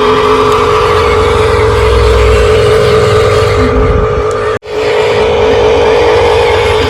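Steady, loud electric-motor whine of a radio-controlled construction model. About two-thirds of the way through it cuts out completely for a split second and then resumes.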